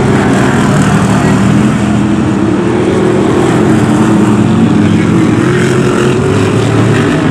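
BriSCA F1 stock cars' V8 engines running steadily as several cars lap the oval, their engine notes overlapping and wavering slightly in pitch.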